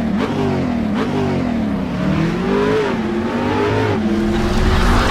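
Engine revving up and down several times, its pitch rising and falling, with a rushing noise building near the end.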